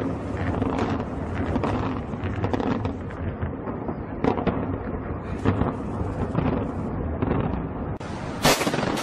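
Controlled demolition of concrete high-rise blocks by explosive charges: a continuous rumble of the collapse with many sharp cracks and bangs. One louder sharp bang comes near the end.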